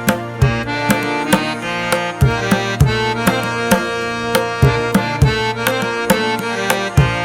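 Instrumental music: a steady hand-drum beat under sustained melodic tones.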